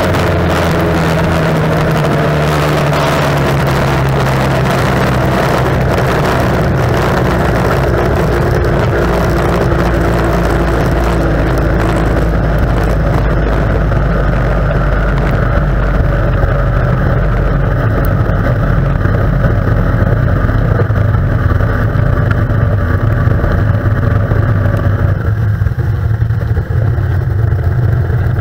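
Tunnel race boat's outboard engine heard from onboard, with wind and water noise. Its pitch falls over the first several seconds as the boat slows, then it runs low and steady, and the high noise thins out near the end.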